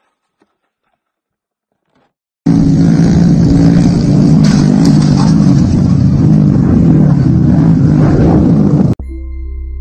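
Near silence for about two seconds, then small motorcycles running hard at high revs come in suddenly and loud, the engine note wavering up and down. They cut off abruptly near the end, giving way to a few steady musical tones.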